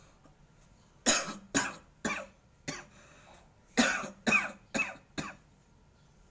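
A person coughing in two fits of four coughs each, about half a second apart. It is a cough that has lasted a week.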